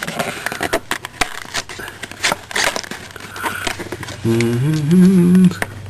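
Packaging crinkling and clicking as it is worked open by hand, with a series of sharp crackles and snaps. About four seconds in, a man's voice hums for just over a second, rising and wavering in pitch.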